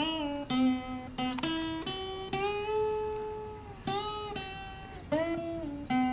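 Acoustic guitar played slowly, notes and chords plucked and left to ring, with one note held for about a second and a half midway.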